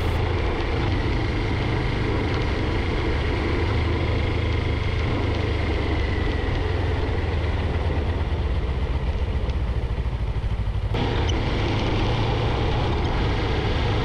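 Steady drone of a vehicle driving along a road: a low engine hum under an even wash of tyre and road noise. The higher part of the noise changes abruptly about eleven seconds in.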